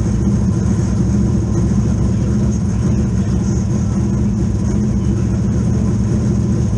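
Two-seater dirt race car's engine running at a steady pitch, heard from inside the cockpit as a loud, even low drone.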